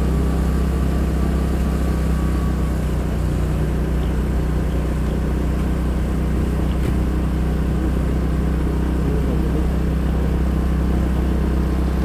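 A Honda PCX scooter's single-cylinder engine running steadily while riding along, with an even, unchanging drone.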